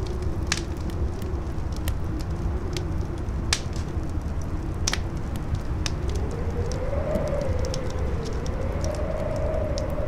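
Campfire crackling with scattered sharp pops, over strong howling wind. The wind's howl wavers and rises in pitch about six seconds in, over a steady low rumble.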